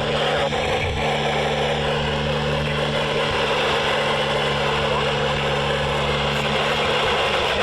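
Weather radio receiver putting out steady static hiss with a low hum under it, the NOAA Weather Radio station being off the air.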